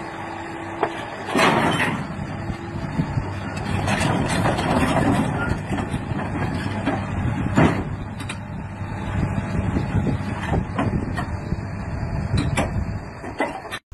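Hitachi crawler excavator running under load as it shoves a large stone block into a dump truck's bed. Heavy knocks and scraping of stone on steel ring out over the engine, the loudest about a second and a half in, with more around four to five seconds and just before eight seconds.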